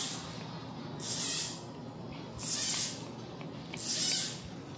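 A high hissing sound that swells and fades in a steady rhythm, about once every second and a half, three times.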